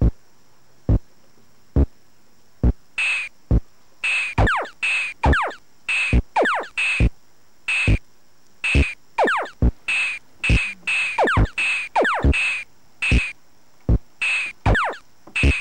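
Synthesized electronic beat: sharp kick-drum thumps about once every 0.9 s. About three seconds in, hissy snare-like bursts and quick falling 'zap' glides join in a fast rhythmic pattern.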